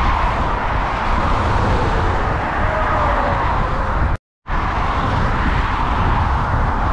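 Wind buffeting the microphone, with rolling road noise, while riding an e-bike. The sound cuts out to silence for a moment about four seconds in.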